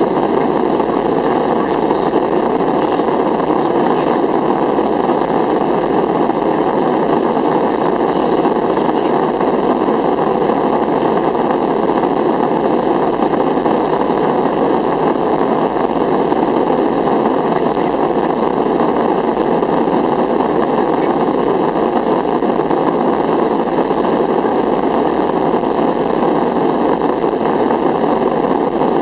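Boeing 737-400's CFM56-3 jet engines running steadily at low power, heard from inside the passenger cabin as an even, unchanging noise with no rise in thrust.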